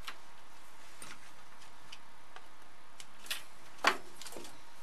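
Light, scattered clicks and taps of the bug zapper's plastic and metal parts being handled and set down, with one sharper, louder clack a little under four seconds in.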